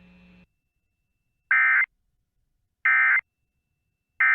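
Emergency Alert System end-of-message data tones on NOAA Weather Radio: three short, identical digital warbling bursts about 1.3 seconds apart, signalling the close of the required monthly test. A faint hum cuts off about half a second before the first burst.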